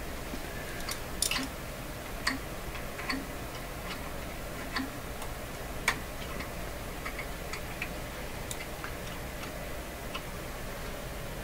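Light, irregular clicks and small scrapes from hand work on a radio coil's wire leads as their ends are scraped clean of their coating, over a faint steady low hum.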